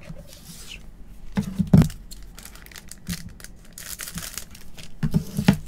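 Wrapper of a 2024 Bowman baseball card pack crinkling as it is handled. Scissors snip across its top about four seconds in, with two louder rustles of the wrapper around the cut.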